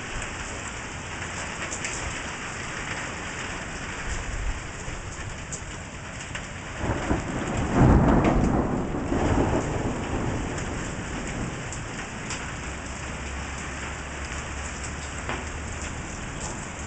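Steady thunderstorm rain falling on the ground, with a loud roll of thunder that swells about seven seconds in, peaks a second later and fades over the next few seconds.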